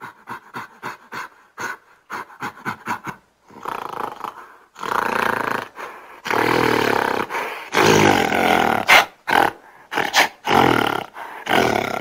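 Gorilla vocalising: a fast run of short grunts, then longer, louder roars from about five seconds in, breaking into short calls near the end.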